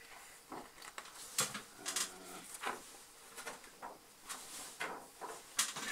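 Paper rustling and crinkling in irregular short bursts as a large folded paper poster is taken out and unfolded by hand.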